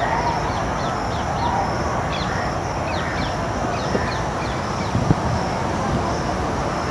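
Birds chirping in short, falling notes, a few each second, over a steady low rumble, with a brief thump about five seconds in.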